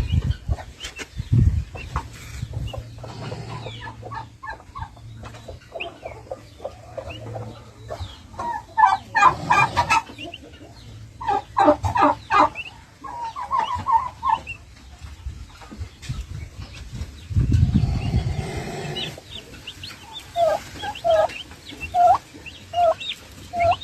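Chickens clucking, many short calls from several birds throughout. A low rumble comes about 17 to 19 seconds in.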